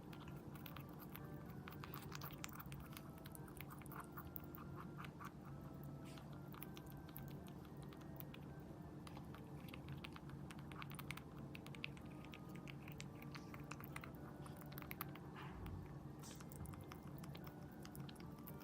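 Netherland Dwarf rabbit munching fruit: a quick, continuous run of small chewing and biting clicks.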